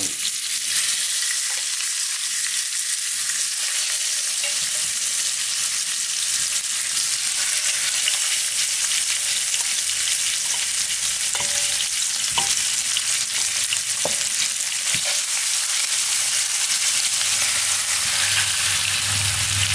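Oxtail pieces sizzling in hot oil in a frying pan as they brown: a steady frying hiss, with a few light clicks about halfway through.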